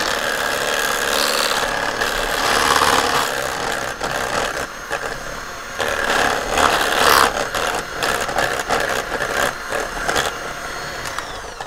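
Electric stand mixer running, its twin metal beaters whipping soft browned butter in a stainless steel bowl: a steady motor whir with the beaters clattering against the bowl.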